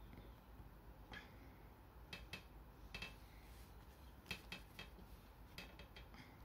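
Faint, scattered clicks and taps of small toy parts being handled and snapped together as a fin funnel backpack is fitted onto a small ν Gundam figure, about a dozen light clicks at irregular intervals.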